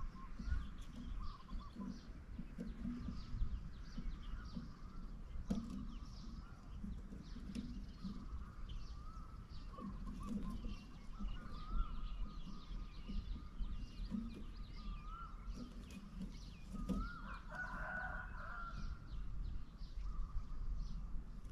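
Outdoor countryside ambience of birds: many short, high chirps scattered throughout over a steady, wavering high tone and a low rumble, with one brief louder call about eighteen seconds in.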